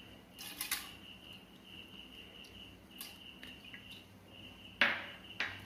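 A few soft knocks and splashes as a handful of rice is tipped by hand into milk in an aluminium pressure cooker pot; the loudest is a sharp knock about five seconds in. A faint high tone comes and goes in the background.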